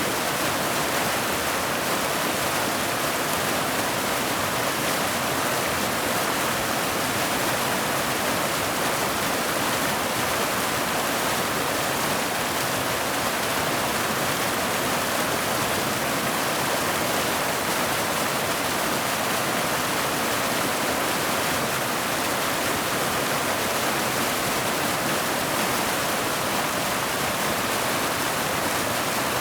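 Mountain waterfall: water cascading down boulders into a pool, a steady, even rush that does not change.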